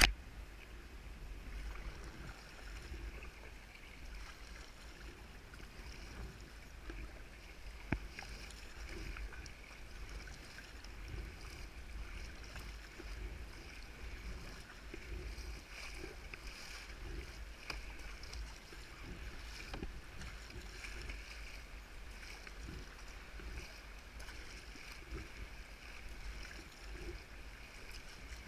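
Sea kayak being paddled: paddle blades dipping and splashing, water lapping around the hull, over a steady low rumble. A single sharp knock about eight seconds in.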